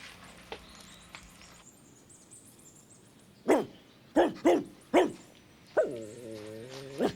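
A dog barks four times in quick succession, each bark dropping in pitch, then gives a drawn-out whine of just over a second that ends in a short yelp.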